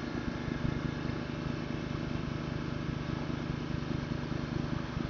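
A small engine running steadily, a low drone with a fast even pulse.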